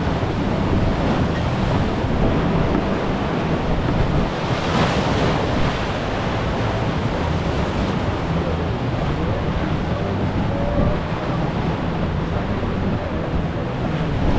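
Whitewater of a river rapid rushing steadily past a sweep boat, swelling briefly about five seconds in, with wind buffeting the microphone.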